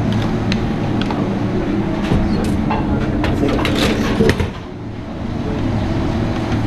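Steady hum of commercial kitchen ventilation, with a cluster of sharp clicks and knocks from metal utensils and handling in the middle. Just past the middle the sound goes dull for about a second, then the hum comes back.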